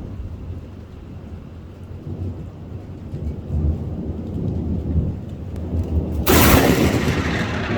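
Thunder: a low rumble that grows from about halfway through, then a sudden loud thunderclap about six seconds in that goes on rumbling.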